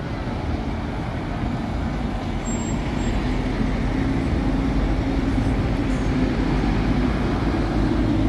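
Diesel engines of truck tractor units, red MAN units among them, running as the trucks drive past one after another. A low engine note builds steadily louder as the nearest trucks come close.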